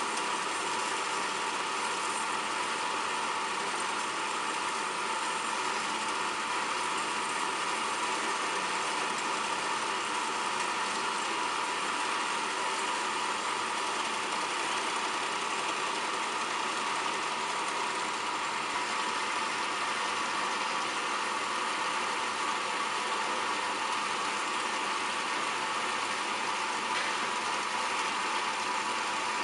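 Wilton 7040 horizontal bandsaw with its 2 HP motor running steadily, a constant mechanical hum with a steady whine.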